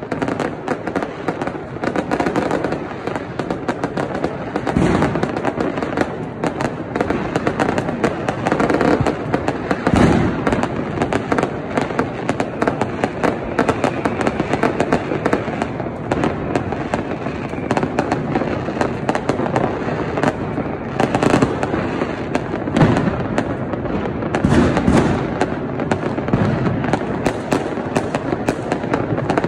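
Many fireworks and firecrackers going off at once, a dense, unbroken crackle and banging with stronger booms standing out about 5, 10, 21, 23 and 25 seconds in.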